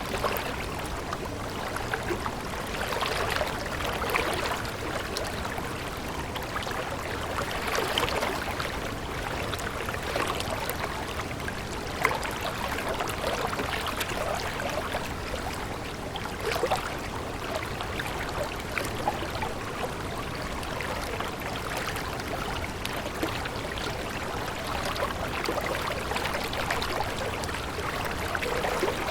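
A stream of water flowing steadily, with small swells and splashes in its sound.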